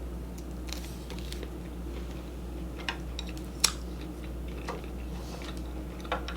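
Scattered short, sharp clicks and smacks of someone eating shrimp and ramen noodles, over a steady low hum.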